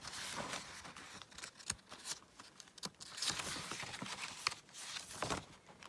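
Paper pages of an instruction manual being turned by hand: a series of paper rustles and light handling noises.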